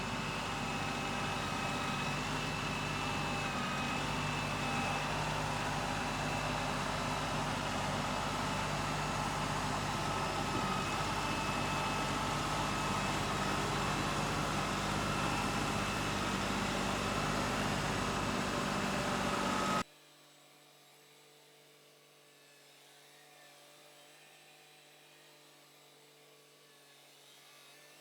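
Compact tractor's engine running steadily at a constant speed, then cutting off abruptly about twenty seconds in, leaving only a faint low hum.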